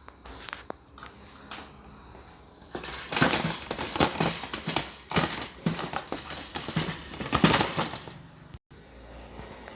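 Handling noise: a few sharp clicks, then about five seconds of loud, irregular crinkling and rattling, as objects are handled close to the microphone.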